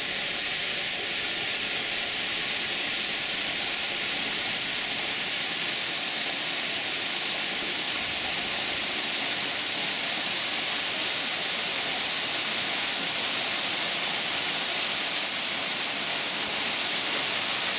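Artificial waterfall pouring down a concrete rock wall: a steady, unbroken rush of falling water.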